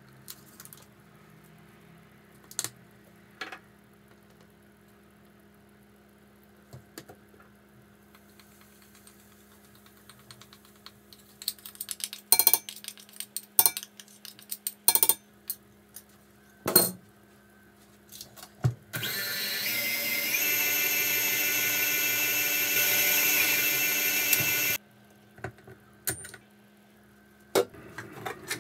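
Stand mixer motor whisking batter: it spins up with a rising whine about two-thirds of the way in, runs steadily at speed for about five seconds, then stops suddenly. Before it, a scatter of sharp clinks and knocks of glassware and a spoon against the steel mixing bowl.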